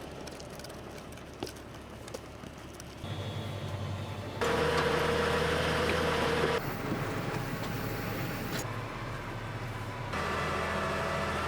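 Diesel tractor engine running while driving. The sound comes in several short segments, its pitch and loudness jumping abruptly every second or two.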